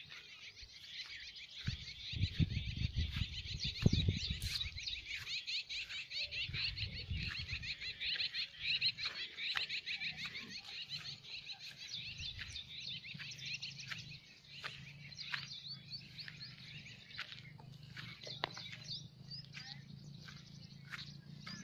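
Dense chorus of many birds chirping continuously, thinning out in the second half. Low rumbling thumps come about two to four seconds in, and a faint low steady hum runs through the latter half.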